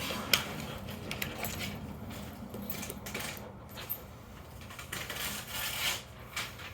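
Small metal clicks and rattles of hex wrenches being handled and tried against a padlock's screw, with a sharp click about a third of a second in.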